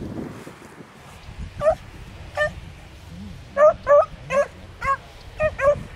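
Beagles baying as they run a rabbit's trail: about eight short, high-pitched barks, starting about a second and a half in and coming closer together in the second half.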